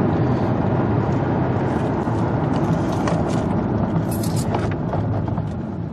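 Road and engine noise inside the cabin of a 2007 Lexus ES 350 being driven. The noise eases off toward the end as the car brakes toward a stop in a test of its front brakes.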